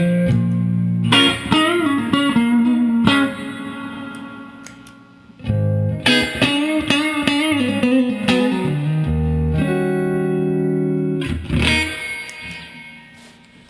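Electric guitar, a Stratocaster with Custom Shop '54 pickups, played through a Fender Twin tube amp: chords struck and left to ring, a run of single notes with bends and vibrato in the middle, and a last chord fading out near the end.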